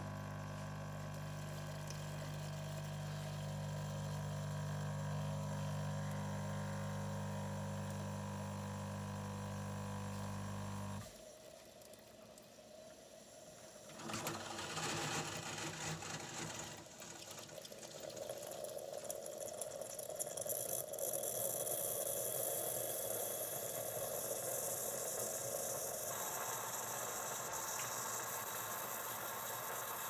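Bosch Tassimo Happy pod coffee machine brewing an espresso pod: its pump hums steadily and cuts off about eleven seconds in. After a brief lull, an uneven hiss follows as the coffee runs into the glass.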